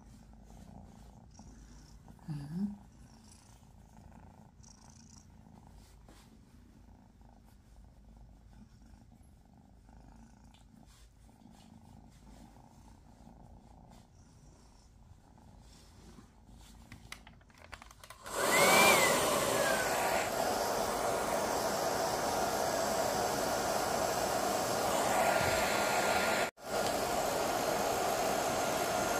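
Hair dryer switched on about two-thirds of the way in, blowing steadily to dry a freshly bathed wet kitten, with a momentary cut-out near the end. Before it, only faint rustling of the towel being rubbed over the kitten.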